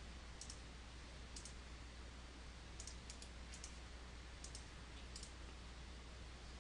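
Faint computer mouse button clicks: about six, several coming in quick pairs, as points are picked for a linear dimension in a CAD drawing. A low steady hum lies underneath.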